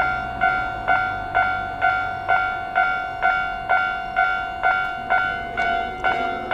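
Japanese railway level-crossing warning bell ringing steadily, about two strokes a second. A low rumble fades out in the first second, and near the end a second ringing, out of step with the first, joins in.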